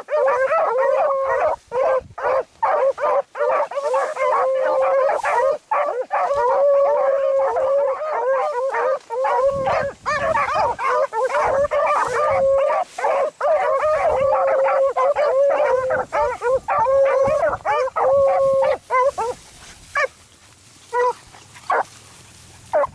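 A pack of beagles baying together on a rabbit's scent, several voices overlapping in a continuous chorus. Near the end the chorus breaks off, leaving a few single bays.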